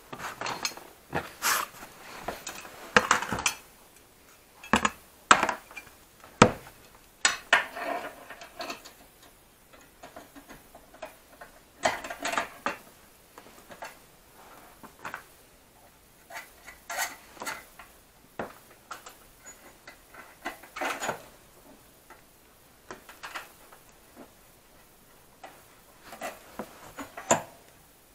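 Hand tools and steel parts clinking and knocking irregularly, single strikes and short clusters with pauses between, as parts are bolted onto a moped.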